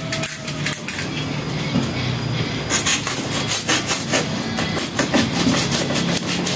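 A small piece of cardboard being cut and torn by hand: scattered crackles at first, then a dense run of crisp snips and crackles from about three seconds in.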